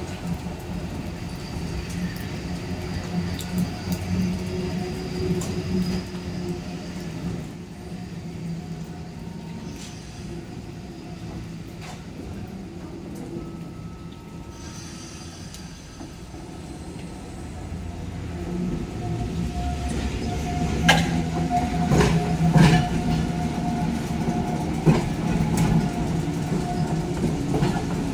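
Randen high-floor tram running on the rails: a steady low rumble of wheels and motors. It grows louder after the middle, with a run of sharp clicks from the wheels over the track.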